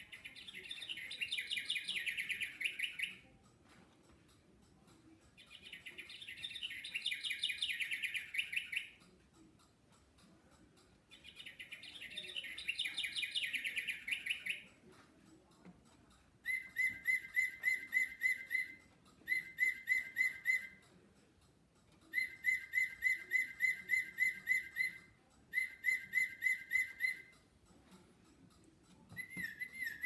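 Battery-powered singing bird clock playing recorded bird songs through its small speaker: a high, rapidly trilled song repeated three times, then, about halfway through, a different bird's song of fast repeated whistled notes in several short phrases, the next starting near the end.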